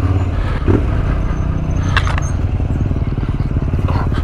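Yamaha Ténéré 700's parallel-twin engine running steadily at low revs on a rough trail, heard from the rider's position, with a sharp knock about two seconds in.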